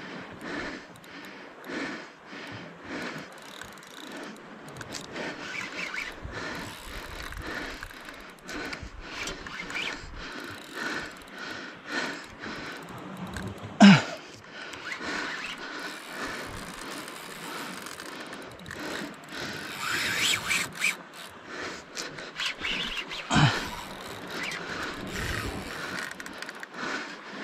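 Daiwa Saltiga Expedition 5500H spinning reel being cranked under load against a large hooked fish, its gears making a steady clicking scrape. There is a sharp knock about halfway through and another near the end.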